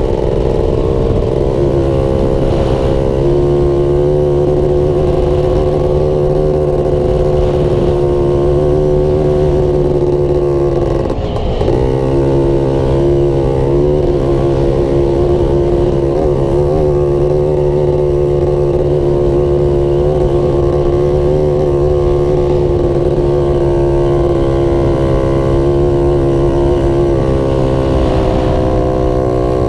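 Off-road vehicle's engine running at a steady cruising throttle while driving across sand dunes. About eleven seconds in the note drops briefly and picks back up.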